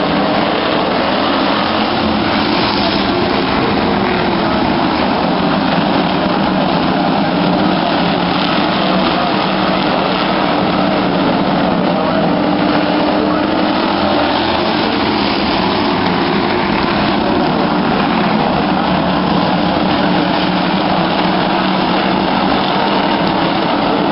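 A pack of stock car engines running together as the field circles the oval in tight double-file formation, a loud, steady drone with no sharp revving.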